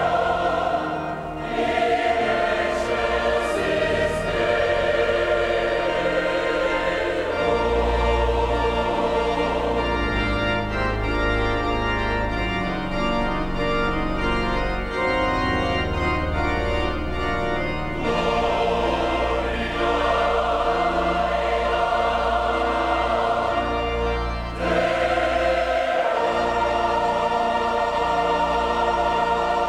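Large choir singing sacred music with pipe organ accompaniment. Deep organ bass notes join about seven seconds in.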